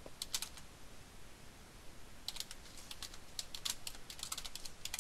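Computer keyboard typing: a few keystrokes about half a second in, then a quick run of keystrokes from about two seconds in.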